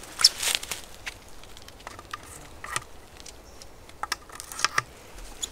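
Faint, scattered rustling and crackling: a few short crackles here and there, with a small cluster near the end.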